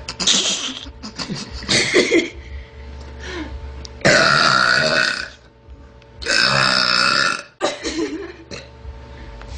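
A small girl belching over and over: a few short burps, then two long loud belches of about a second each.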